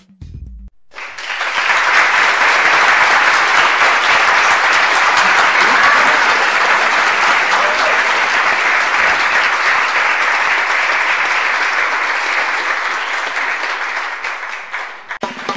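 Audience applause that swells up about a second in, holds steady for over ten seconds, eases slightly and stops just before the end.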